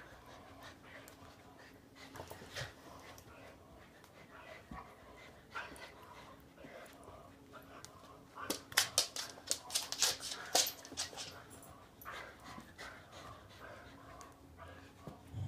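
Two dogs, an English Setter and an Australian Shepherd mix, tugging a toy between them: low dog play noises, then a burst of rapid clicking and scuffling about halfway through.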